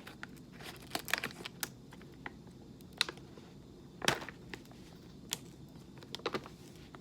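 Coffee bag being opened and handled: irregular crinkles and sharp clicks of the packaging, a loud one about four seconds in.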